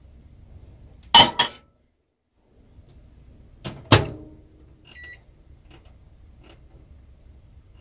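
Microwave oven being shut and set: two sharp clacks about a second in and another near four seconds, then a short keypad beep about five seconds in followed by a few fainter beeps as the cooking time is keyed in.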